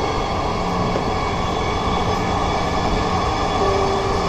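Inside a moving metro train car: the steady running noise of the train at speed, with a low steady hum and faint high tones held throughout.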